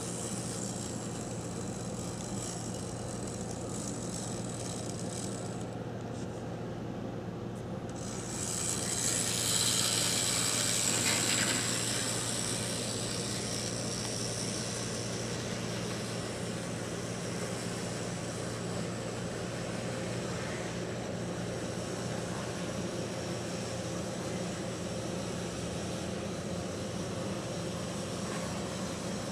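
Brass HOn3 Ken Kidder Porter Mogul 2-6-0 model locomotive running on its track: a steady electric-motor hum with gear and wheel noise. A high whine swells louder for a few seconds about nine seconds in.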